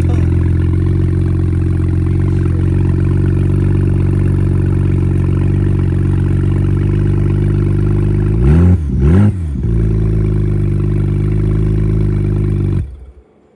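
Car engine idling steadily, blipped twice in quick succession, then switched off near the end.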